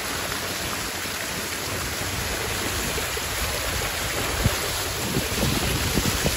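Steady rushing noise with wind buffeting the microphone in uneven low gusts, which grow stronger in the second half.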